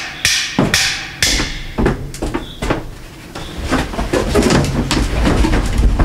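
Repeated sharp knocks with a ringing tail, about two a second, stopping a little over a second in, followed by lighter, irregular knocks and clattering over a low rumble.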